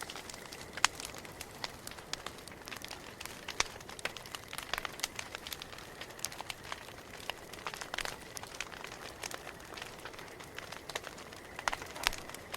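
Campfire crackling: irregular pops and snaps over a soft steady hiss, with a few louder snaps, the loudest about a second in.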